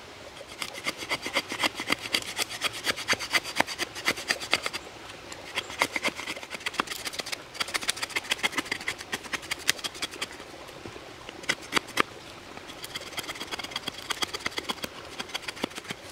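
Fixed-blade knife shaving a wooden stick into a feather stick: quick runs of short, dry scraping strokes, several a second, each a blade stroke lifting a thin curl of wood, with a few brief pauses between the runs.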